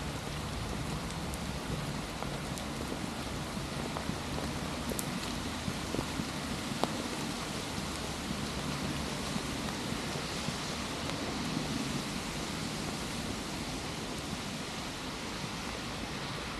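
Steady rain falling, with a couple of sharp drip ticks about five and seven seconds in.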